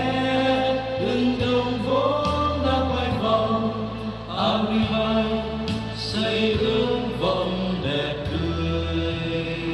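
Men singing a song into microphones over instrumental backing music with a steady bass line.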